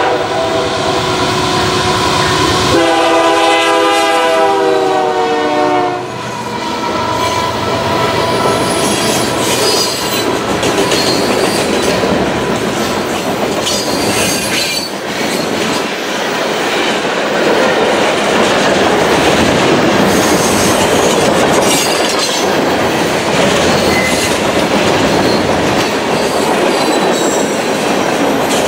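A train horn sounds a chord for about three seconds, starting around three seconds in. Then the train rolls past with loud, steady wheel noise, rail clatter and occasional high-pitched wheel squeal.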